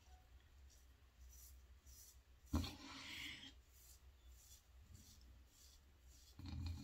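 Faint scraping of a shavette blade cutting lathered stubble in short strokes, with one slightly louder rasp about two and a half seconds in.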